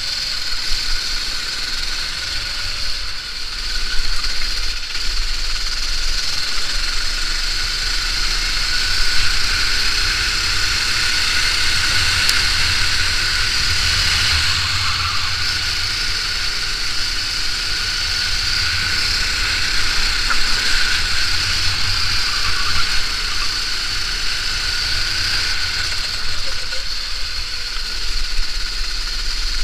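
Go-kart engine running continuously at racing speed, heard close up from a camera mounted on the kart.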